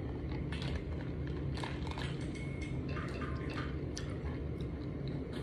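Faint wet mouth sounds and small scattered clicks over a steady low room hum.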